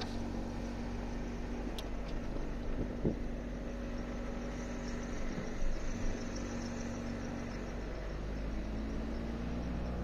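Car driving, heard from inside the cabin with a window open: steady engine and road noise with a steady hum, in which a passenger hears what sounds like a drive-belt noise.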